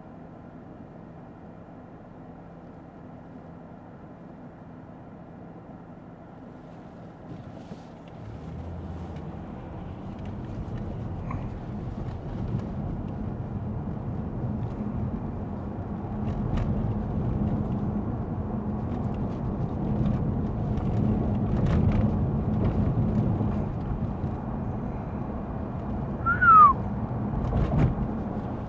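Interior noise of a Lexus ES 350 F Sport with its V6: quiet and steady at first, then from about eight seconds in a low engine and road rumble builds as the car pulls away and gathers speed on a rain-wet road. A short falling squeak stands out near the end.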